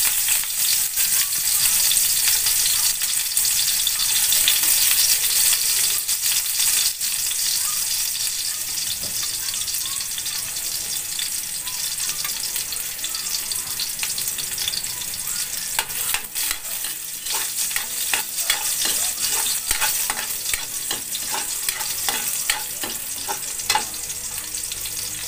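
Garlic cloves sizzling in hot cooking oil in a wok, a dense hiss with scattered crackles, loudest at first and easing off gradually as the garlic fries toward brown. Near the end a metal spoon stirs the garlic against the wok.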